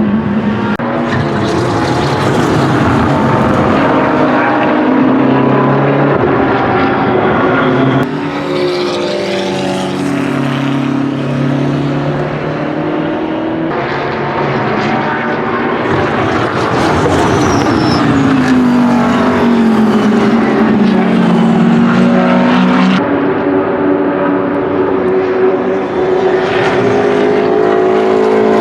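BMW M6 GT3 racing car's twin-turbo V8 running at full load, its pitch climbing and dropping through gear changes, in several short clips that change abruptly every several seconds.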